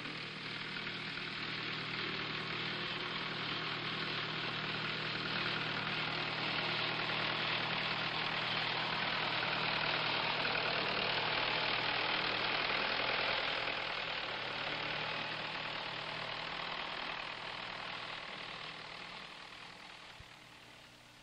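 A machine engine running steadily, growing louder through the first half and fading away near the end.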